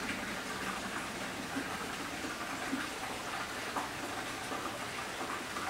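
Hot-spring water running steadily into an open-air rock bath.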